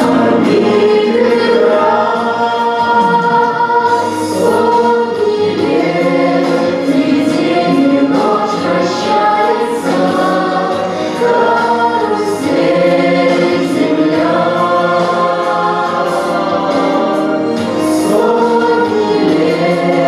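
Music: a group of voices singing together in chorus over instrumental backing.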